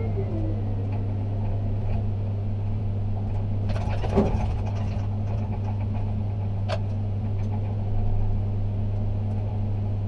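Ship-to-shore container gantry crane heard from its operator's cab: a steady low hum of the crane's machinery, with a brief rattling clatter about four seconds in and a single sharp click near seven seconds.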